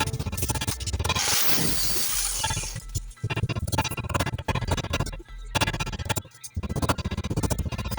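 Background music with a steady beat and heavy bass. About a second in, a burst of harsh hissing noise runs for nearly two seconds over it.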